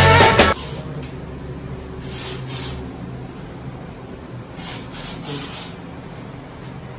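Soft rubbing and rustling of hands handling a dog's fur and nylon harness, in a few short bursts over a low steady room hum. Background music cuts off about half a second in.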